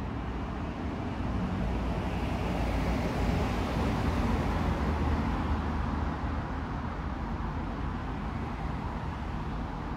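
Steady low rumble of distant road traffic, swelling a little a few seconds in and easing off again.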